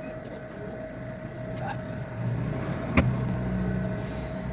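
A motor running steadily with a low hum and a held higher tone, with one sharp click about three seconds in.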